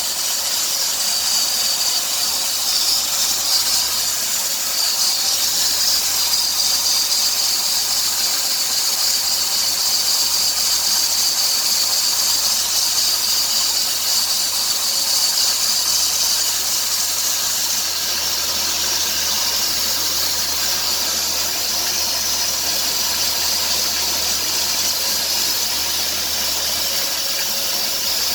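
Running 3.3-litre V6 of a 2003 Dodge Grand Caravan with a steady, high-pitched hissing squeal from the engine's accessory drive. This noise goes quiet when sprayed with water, and it has persisted after new idler and tensioner pulleys and a new power steering pump; the owner wonders whether the drive belt is the cause.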